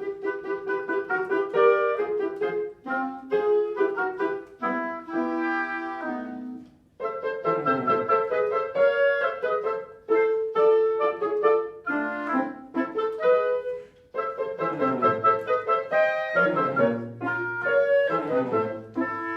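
Live chamber ensemble playing instrumental classical music, with the clarinet leading over piano and lower strings. The phrases break off briefly about seven and fourteen seconds in.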